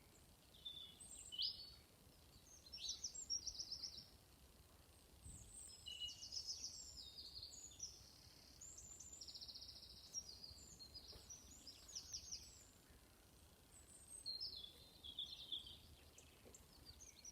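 Small songbirds singing: short, high, rapid trilled phrases come one after another every second or two, with a faint low background hum.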